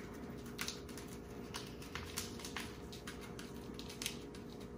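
Seasoning shaken from a small shaker bottle onto sliced duck meat: faint, irregular light ticks and rattles.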